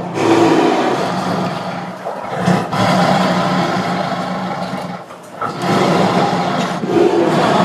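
Loud, drawn-out animal growling in three long stretches, with short breaks a little after two seconds and around five seconds.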